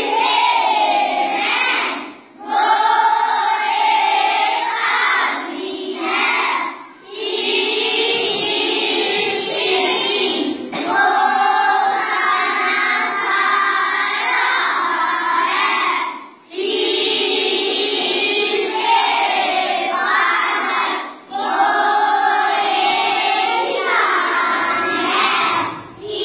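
A class of boys reciting aloud together from their books in a sing-song chant, in phrases a few seconds long with short breaks between them.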